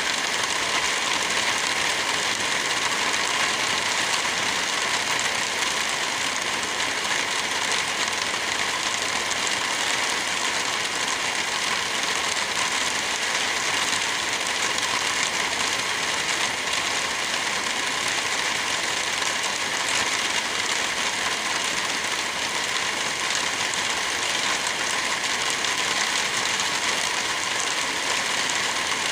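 Wind blowing through trees with light rain falling, a steady, even hiss.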